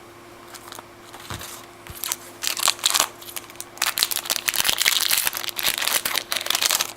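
A trading-card pack wrapper crinkling as it is pulled open by hand. Faint for about the first two seconds, then a dense run of crinkles and small clicks.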